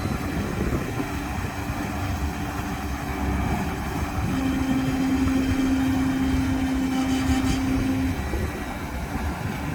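Kubota tractor running a Kuhn baler: steady engine and machinery rumble. A steady mechanical hum joins in about four seconds in and stops about eight seconds in.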